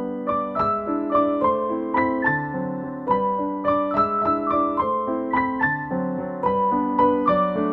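Background piano music: a gentle melody of single notes struck a few times a second over sustained chords.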